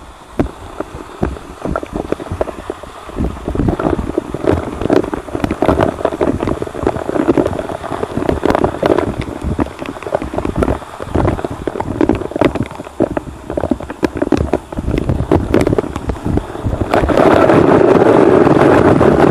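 Waterfall spray and falling water striking a helmet-mounted camera during an abseil down the falls: a rushing wash broken by many sharp little hits on the microphone. About two seconds before the end it becomes a louder, steady rush as the camera enters the heavy spray at the foot of the falls.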